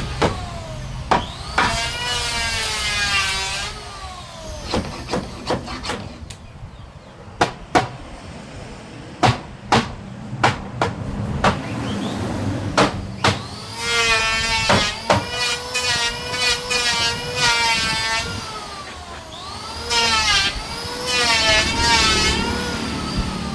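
Hammer taps on wood, about a dozen sharp knocks in irregular runs, during the fitting of a wooden door panel. Before and after the knocks there are stretches of a pitched sound that wavers up and down.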